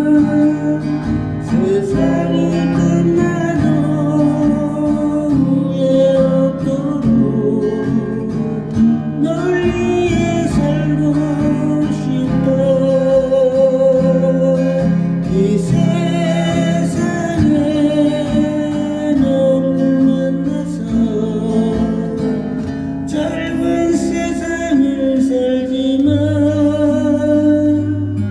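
Acoustic guitar strummed and picked under a slow sung melody, the song playing on without a pause.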